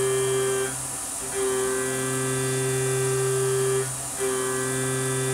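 Tormach 770 CNC milling machine cutting an aluminium block dry with a 1/2-inch end mill: a steady high-pitched whine whose pitch holds throughout. The whine drops out briefly about a second in and again near four seconds in, then comes back at the same pitch.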